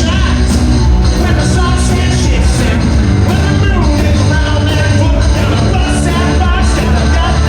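Rock band playing live at full volume: driving drums and cymbals over a heavy bass and guitars, with a sung vocal line.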